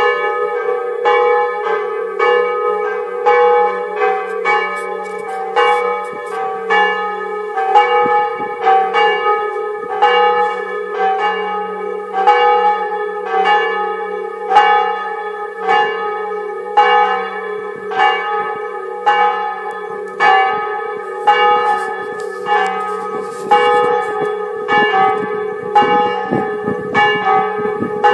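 Church bells ringing to call people to a service, swinging bells struck evenly about one and a half times a second, the ring of each stroke carrying into the next.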